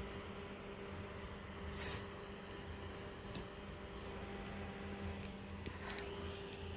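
Electric fan running with a steady low hum, with a few faint rustles and a short hiss about two seconds in.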